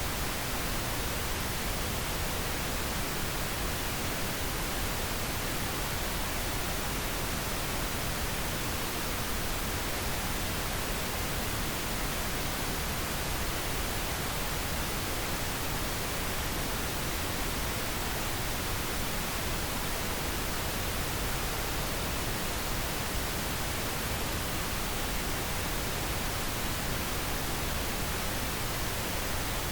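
Steady pink noise: an even, unchanging hiss spread across the whole range, played as a sleep aid for babies.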